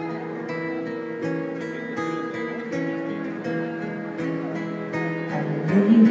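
Amplified acoustic guitars playing the instrumental opening of a slow song, a steady pattern of picked and strummed chords. A voice comes in near the end.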